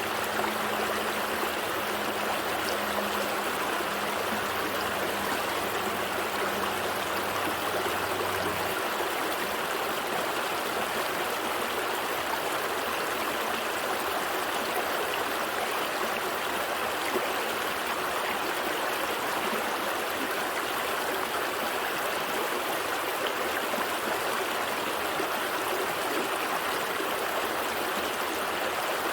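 Gentle stream running steadily, an even rush of flowing water. A faint low hum underneath stops about nine seconds in.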